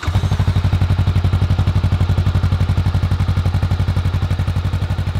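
Honda Rebel 500's 471 cc parallel-twin engine idling through its stock muffler, a steady, even low pulsing. It is the bike's quiet factory exhaust note, which the owner finds not loud enough.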